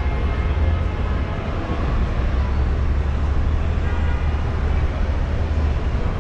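Car driving along a busy city street, heard from a camera on its hood: a steady low rumble of the car and road with traffic noise around it.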